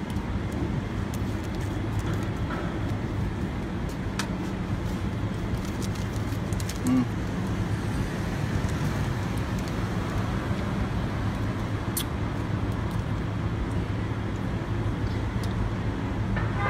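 Steady street traffic noise with a constant low hum, and a few faint clicks.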